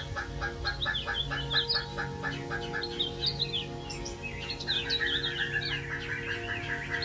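Birds chirping in quick, short rising and falling notes over steady background music. A fast repeated pulse, about five a second, runs through the first couple of seconds.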